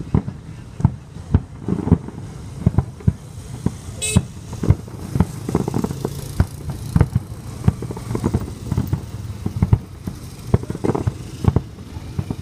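Fireworks bursting in quick, irregular succession, two or three bangs a second, over a steady low rumble of traffic and crowd. A brief high-pitched tone sounds about four seconds in.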